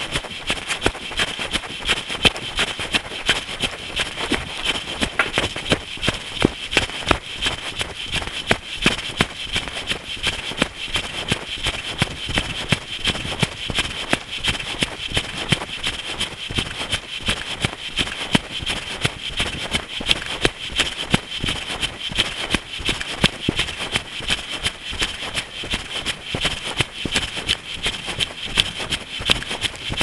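A runner's footsteps on a path at a steady jogging cadence, a few strides a second, each stride a short sharp impact.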